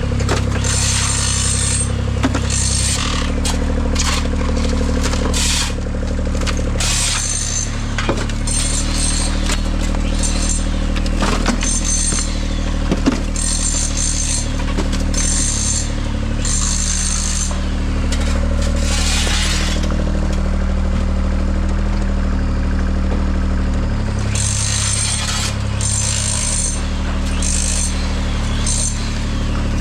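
A large engine running steadily, likely construction machinery, with repeated short bursts of higher hissing or clatter over it.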